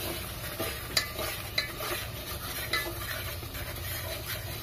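Metal spoon stirring spice powders into a masala frying in oil in an aluminium pot, scraping with a few sharp clinks against the pot over a steady sizzle.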